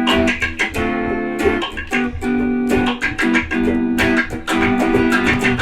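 A live band playing an instrumental intro with guitar in front. Chords are picked in a steady rhythm over a bass line.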